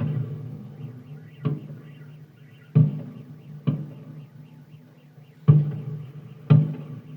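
Fireworks shells bursting overhead: a loud bang right at the start, then five more at irregular intervals, each with an echoing tail.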